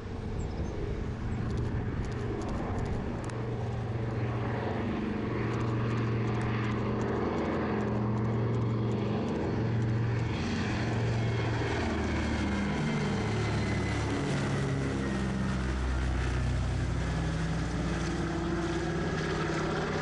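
Twin Pratt & Whitney R-1830 radial engines of a PBY-5 Canso flying boat running at high power on take-off and departure, a pulsing propeller drone whose pitch bends downward in the second half as the aircraft goes past.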